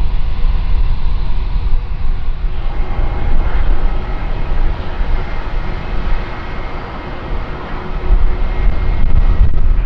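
Airbus A321 airliner's jet engines running at taxi idle: a steady rumble with a faint whine.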